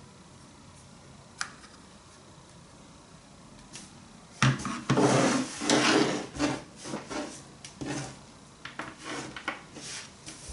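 A few faint clicks, then about four seconds in a loud run of rubbing, scraping and knocking, as of objects being handled and moved about, which thins out into separate scrapes.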